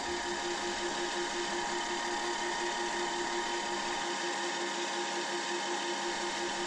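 Milling machine spindle running with a centre drill cutting into aluminium bar stock: a steady machine sound with a low hum that pulses several times a second.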